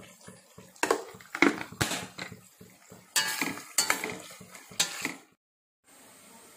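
A metal spoon stirring sliced onions frying in oil in a stainless steel pot, with repeated clinks and scrapes of the spoon against the pot over a soft sizzle. The sound stops abruptly about five seconds in.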